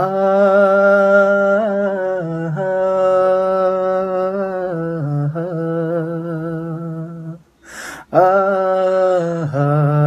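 A man's voice singing an unaccompanied Bengali Islamic gazal, a long wordless melodic line of held, slowly gliding notes. A quick intake of breath about eight seconds in.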